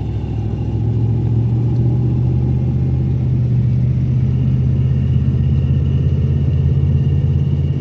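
Ram pickup truck's engine pulling, heard from inside the cab, getting louder over the first second as the truck speeds up, then holding a steady drone with road noise. A faint high whine joins in about three seconds in.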